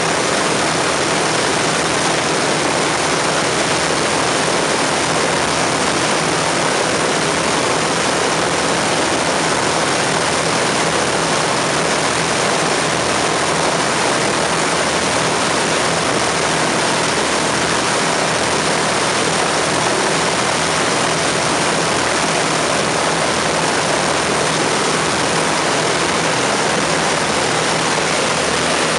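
The four Merlin V12 engines of an Avro Lancaster bomber running together at a steady speed, propellers turning, while the aircraft stands on its chocks. It is a loud, even drone that does not rise or fall.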